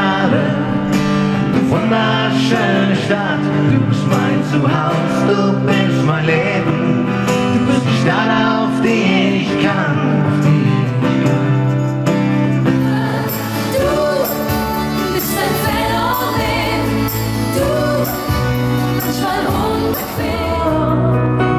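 Live acoustic pop music: two men singing to an acoustic guitar. About 13 seconds in it changes to a different song from an acoustic band with accordion, acoustic guitars, keyboard and several singers.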